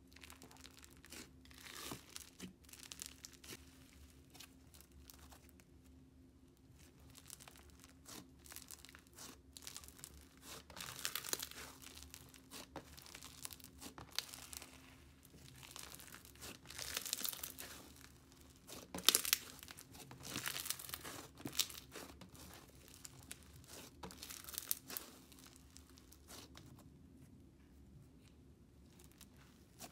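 Thick, fluffy pink slime being pressed, pulled apart and folded by hand, giving faint sticky crackling and tearing sounds with many small clicks. It comes in bouts that are loudest a little past the middle.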